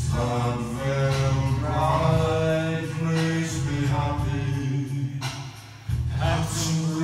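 A song playing: a sung vocal line over a steady bass, with a short drop in level about five seconds in.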